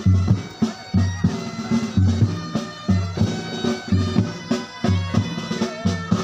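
Military pipe-band music: bagpipes playing a slow melody over a steady drumbeat of about two beats a second.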